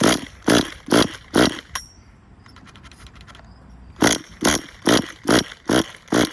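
Tamiya TGS-R nitro RC car engine being cranked over with its starter, in quick rasping strokes about two a second: four strokes, a pause, then another run of six or seven. The engine does not fire; it has flamed out and won't restart, which the owner puts down to a possible air leak.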